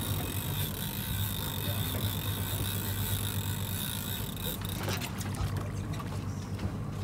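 A conventional fishing reel being cranked steadily under the load of a hooked fish, its gears giving a thin whine that stops about two-thirds of the way in, over a steady low hum and water lapping at the boat.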